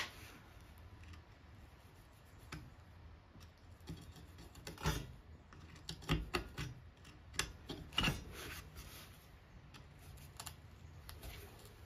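Hand screwdriver turning an old, rusty screw out of a cast-iron desk foot and its wooden runner: faint, scattered clicks and scrapes of the tip in the screw head, with a few louder ones around the middle.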